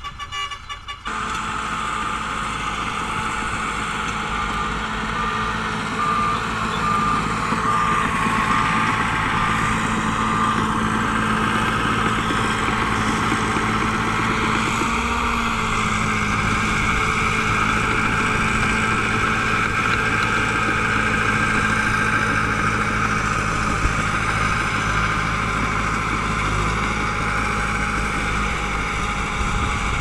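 Diesel engine of a Shantui mini crawler bulldozer running steadily as it pushes earth, with a reversing alarm beeping through roughly the first ten seconds.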